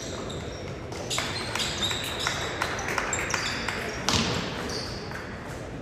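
Basketballs bouncing on a hardwood gym floor, with short sneaker squeaks and voices chattering in the echoing gym. The bounces come thick and fast from about a second in.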